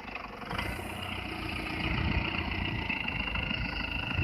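Added sound effect of a vehicle engine running steadily, growing a little louder about two seconds in.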